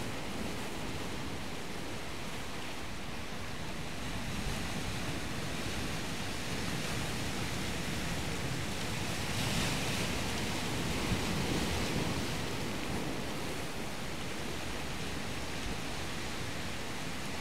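Surf washing on the shore: a steady rushing hiss that swells briefly about ten seconds in.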